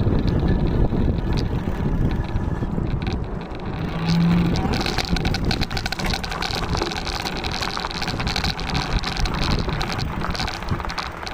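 Duotts S26 electric fat bike on the move: a steady rumble of wind buffeting the microphone over the running noise of the tyres and rear hub motor.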